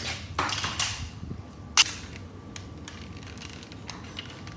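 Handling of the snapped-apart welded metal pieces: two short rustling scrapes, then a single sharp click a little under two seconds in, followed by a few faint ticks.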